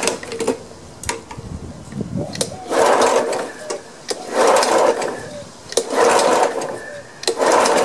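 Recoil starter of a Snapper Ninja mower's Honda engine pulled four times, each pull a whirr about a second long, about one and a half seconds apart; the engine turns over without firing because the spark plug is not on.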